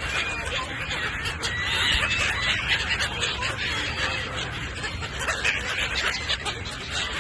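A flock of gulls calling, many short squealing cries overlapping in a continuous din.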